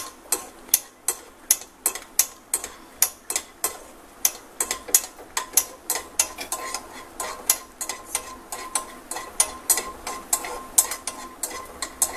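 Peanuts roasting in ghee in a pan, stirred so that the utensil scrapes and clicks against the pan about three times a second.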